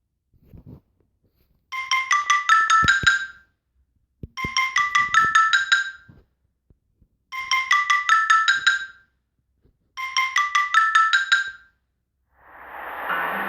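Samsung Galaxy S5 ringtone playing through the phone's speaker: a quick run of marimba-like notes, repeated four times with short pauses between. A different, steadier tone fades in near the end.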